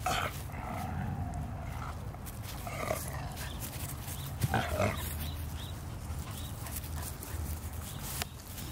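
A Siberian husky and a Belgian Malinois puppy play-fighting, with a handful of short whiny dog vocalizations, one drawn out for about a second near the start, and faint scuffling between them.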